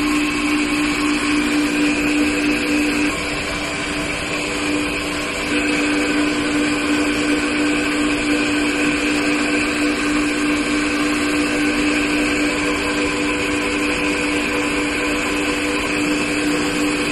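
Steady machine hum with a low drone, heard from inside a moving Ferris wheel gondola; the drone drops out for about two seconds a few seconds in, then returns.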